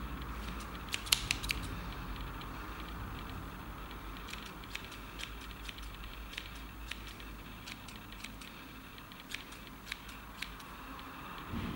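Sharp fly-tying scissors snipping through stiff synthetic twist hair fibers to trim a streamer fly: a quick cluster of snips about a second in, then single snips every half second or so.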